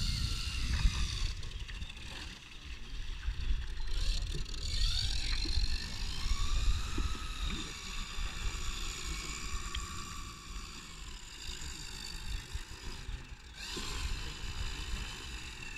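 Geared electric motor (Hacker A40) and three-blade propeller of a quarter-scale RC Piper PA-18 floatplane whining as it taxis on the water, the pitch rising and falling with the throttle. Wind rumbles on the microphone throughout.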